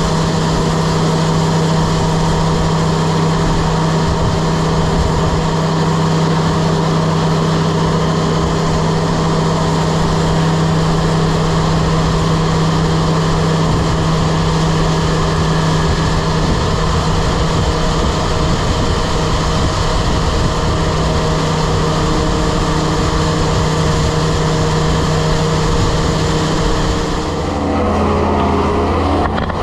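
Grain vac running steadily and loudly, sucking old corn out of a corn crib. Near the end its tone shifts.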